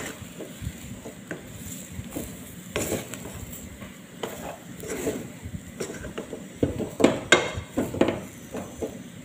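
Wooden spatula stirring and mashing a thick potato filling in a cooking pot, scraping and knocking irregularly against the pot's sides and base. The knocks come quicker and louder about seven seconds in.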